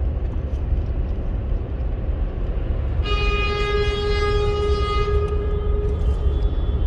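Low, steady road rumble heard from inside a moving car. About three seconds in, a long steady horn-like tone starts, holds for about three seconds, and stops.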